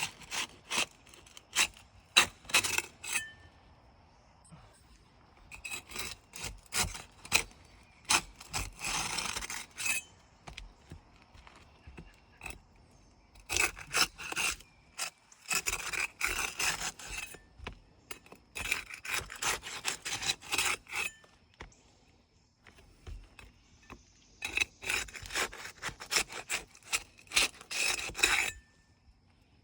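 A hand tool scraping and rubbing against roof shingles as they are worked loose for removal, in five bursts of quick scratchy strokes with short pauses between them.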